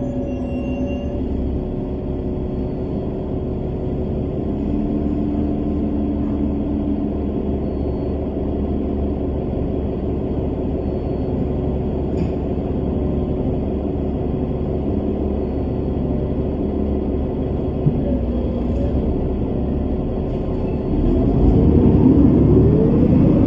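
Bus engine running with a steady low road rumble. Near the end the engine note climbs in pitch and gets louder, as the bus accelerates.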